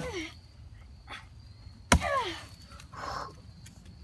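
Axe chopping into a log: the tail of one blow at the very start, then a single sharp chop about two seconds in.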